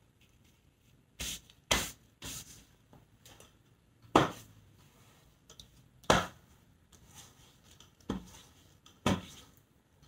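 Clothes iron being pressed down and shifted over a cloth-covered canvas on a countertop: about seven short, sharp scraping knocks, spaced irregularly from half a second to two seconds apart.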